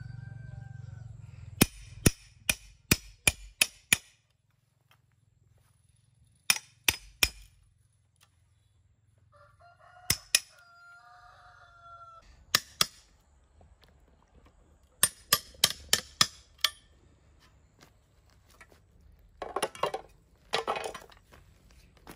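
Runs of sharp tool strikes from hand woodworking, two to seven blows at a time at about three a second, with a rougher scraping burst near the end. A rooster crows about ten seconds in.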